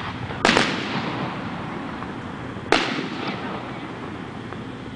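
Aerial firework shells bursting in the sky: a quick double bang about half a second in and another single bang near the middle, each dying away slowly.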